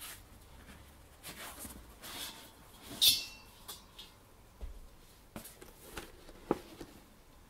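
Quiet room with scattered soft rustles and light clicks, the loudest a brief rustle about three seconds in and a soft thump near the end.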